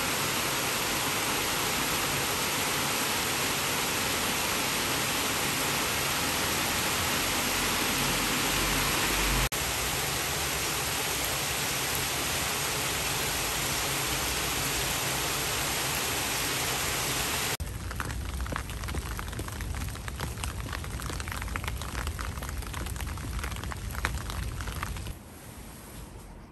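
Heavy rain pouring steadily onto a street and foliage, a dense even hiss. About two-thirds through it changes abruptly to a lower, crackling rain with many separate drops, and near the end it falls to a much quieter room tone.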